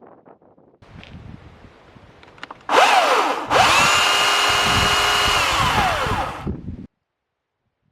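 Greenworks 82CS34 82V battery chainsaw's electric motor whines up in a short burst, cuts out for a moment, then spins up again and holds a steady high whine for about two seconds before winding down and stopping. It is a test run of the freshly installed and tensioned bar and chain. Quieter handling noises come before it.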